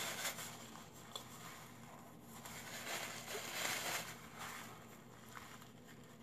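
Soft rustling of a paper tissue being handled and pressed to the lips, in a few short noisy bursts that are loudest about three to four seconds in, with a small click about a second in.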